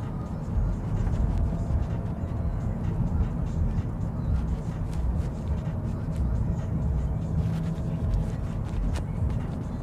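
Steady low rumble of a car driving along at road speed, heard from inside the cabin: engine and tyre noise.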